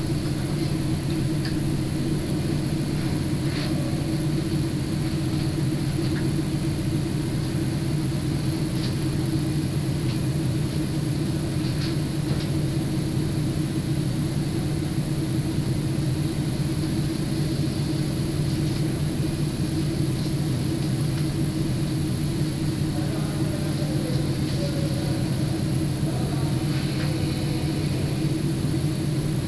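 KiHa 40 diesel railcar's engine idling steadily, heard from inside the passenger cabin.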